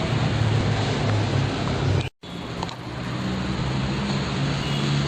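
Steady rushing background noise with a low hum, cut off for an instant about two seconds in.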